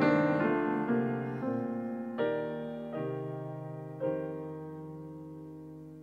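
Grand piano playing slow, sustained chords on its own. A new chord is struck roughly every second, and the last one comes about four seconds in and is left to ring and fade.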